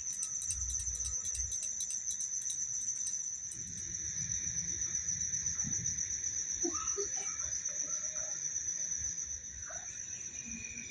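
Crickets chirping at night in a steady, pulsing high trill, with a faster high clicking that stops about three seconds in.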